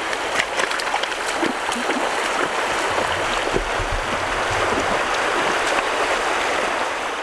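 Running water of a shallow, rocky river: a steady rushing with small gurgles and splashes.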